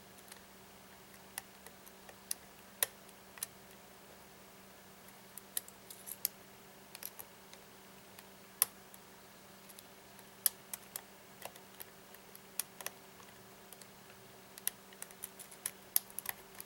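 Scattered small, irregular clicks and ticks of a Peterson Gem lock pick and tension wrench working the pins inside a Yale padlock, over a faint steady hum.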